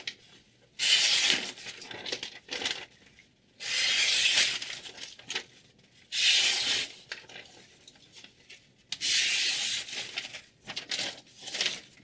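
A sheet of paper being sliced four times against a freshly sharpened chef knife edge, each cut a hissing rasp about a second long, then rustling paper near the end. This is a paper-cutting test of the edge's sharpness.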